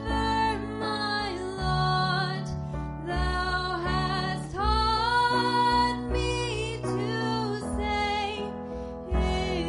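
Slow, gentle worship music: a woman sings a held, sliding melody over low, sustained accompaniment.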